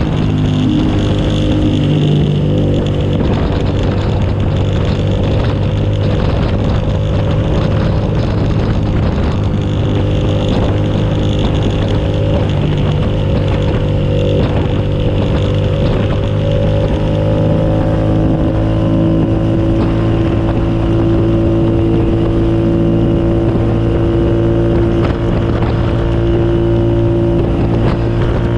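2007 Suzuki SV650S's 645 cc V-twin engine running at fairly steady revs on track, its pitch rising and falling only slowly and gently, with wind rush over it.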